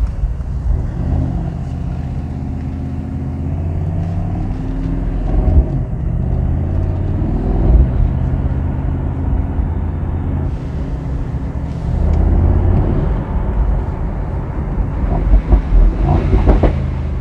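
Mercedes-AMG SL63's twin-turbo 4.0-litre V8 pulling through the gears on the road, its engine note rising and dropping several times, with a few sharp exhaust crackles near the end.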